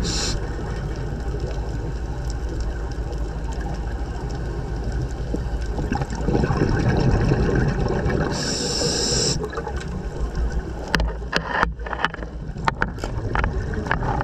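Scuba regulator breathing underwater. A short hiss of inhaled air comes at the start and again about eight seconds in, with a low gurgling rush of exhaled bubbles just before the second hiss. Irregular crackling pops follow near the end.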